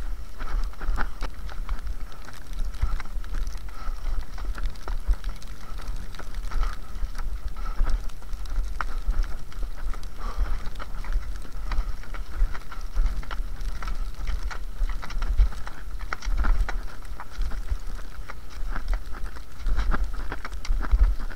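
Cross-country skis and poles working on a snowy classic track: a quick, uneven run of clicks and scrapes from pole plants and ski strides, over a constant deep rumble of wind on the microphone.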